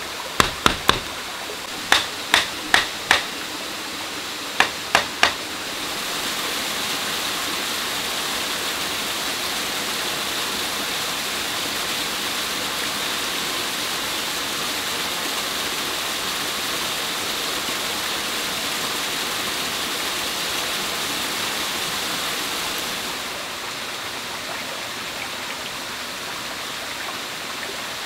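A large knife chopping into a wooden stick on a plank: sharp strikes in three quick groups of three or four over the first five seconds. Then steady rushing water of a stream, louder from about six seconds in and dropping back a little near the end.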